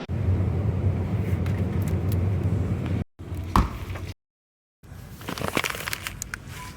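Low steady rumble of a vehicle driving, heard from inside. It cuts off abruptly about three seconds in, and after a brief gap come scattered clicks and rustles of handling.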